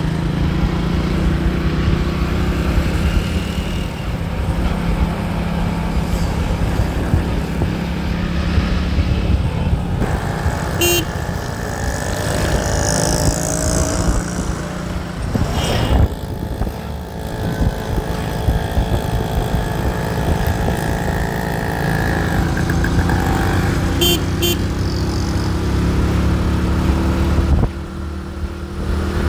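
Busy road traffic: engines running and vehicles passing, with car horns honking now and then. The sound changes abruptly twice, as if separate recordings are joined.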